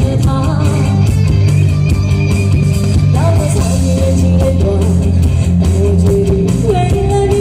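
Rock-ballad band music: a lead melody line with long held notes that slide between pitches, over guitar, bass and drums.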